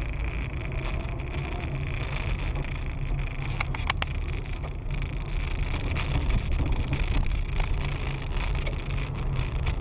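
A car on the move: a steady low rumble of engine and road noise, with a couple of sharp clicks about four seconds in.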